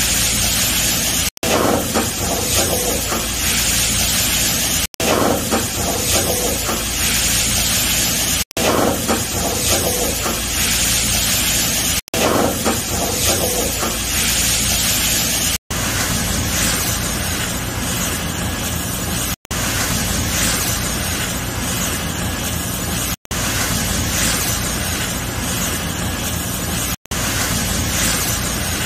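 Sliced bell peppers sizzling in hot oil in a pan as they are stir-fried with wooden chopsticks. A steady hiss, broken by a brief silent gap every three to four seconds.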